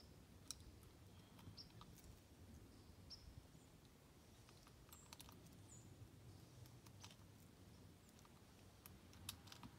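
Near silence, with a few faint, scattered clicks from a Ruger 10/22 rifle being handled at the action and faint short high chirps now and then.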